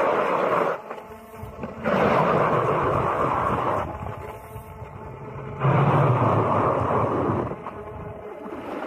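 Power ice auger, driven by a cordless drill, boring through lake ice: a steady motor whine under loud grinding and spraying of ice chips, swelling in three surges and easing off near the end as the auger is lifted from the hole.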